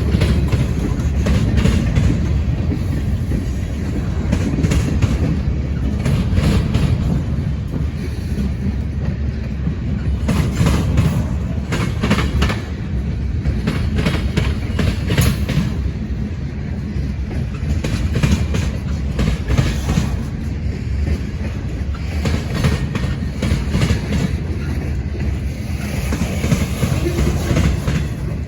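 Freight train cars rolling past: a steady low rumble of wheels on rail, with a run of sharp clacks as the wheels cross rail joints.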